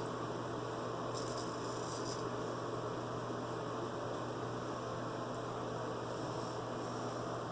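Steady low electrical hum with a constant noise floor. Twice, about a second in and near the end, faint scraping strokes of a straight razor across lathered stubble.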